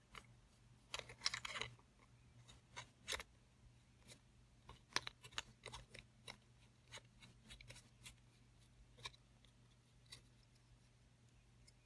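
Faint, irregular clicks and light taps of small plastic and metal parts being handled while a knife-sharpening vise is assembled. There is a quick cluster of clicks about a second in, then scattered single ones.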